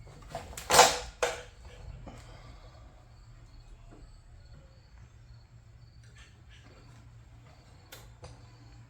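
Hand tools clattering against a tool cart with a short ringing about a second in, then a few faint clicks and taps of tools on the work.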